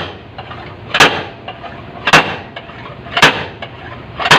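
Four heavy metal blows, evenly about a second apart, each with a short ring: hammering or pulling out dents in the sheet-metal body of a damaged Suzuki Carry.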